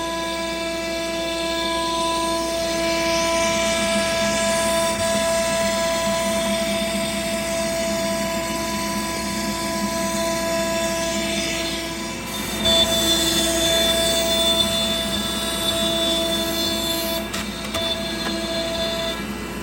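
Sienci AltMill CNC router running a cut: several steady whining tones over a hiss. The tones change about twelve seconds in and again a few seconds later, as the machine's motors change speed.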